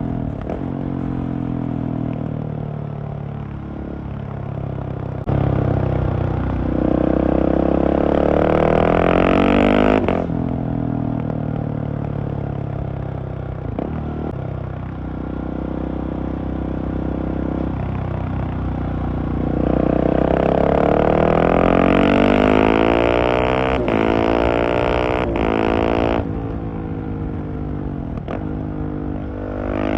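Husqvarna 701's single-cylinder engine through a LeoVince Nero exhaust, ridden on the road: twice the revs climb hard under acceleration and then drop off sharply, with steadier, softer running between the pulls.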